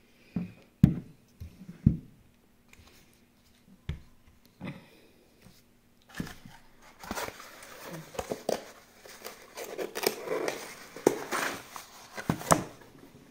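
A few sharp knocks of bottles being set down on a tabletop, then, from about halfway through, continuous rustling and crinkling of packaging as items are dug out of a cardboard shipping box.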